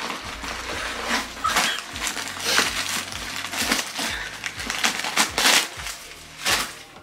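Packaging crinkling and rustling by hand in irregular bursts as a gift is unwrapped and pulled out of a bag.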